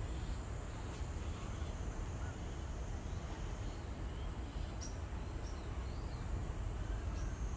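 Steady low background rumble with faint, scattered high-pitched chirps and a few light clicks.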